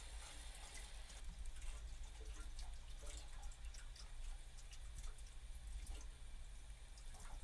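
Water running through water softener pipes: a faint steady hiss over a low hum, with scattered small drips and trickles.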